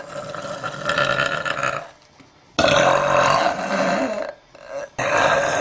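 A woman burping: three long, drawn-out belches in a row, each lasting about two seconds, with short pauses between them.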